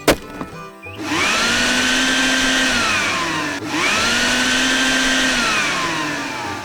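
A machine sound effect: a motor whirring up in pitch, holding, then winding down, twice in a row. A sharp hit comes right at the start.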